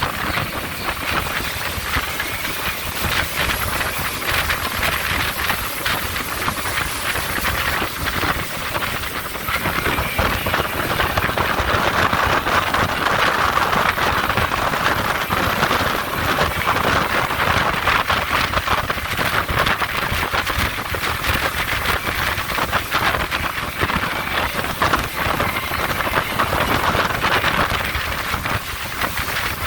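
Speedboat running at speed: a loud, steady rush of engine, wind and water with no let-up.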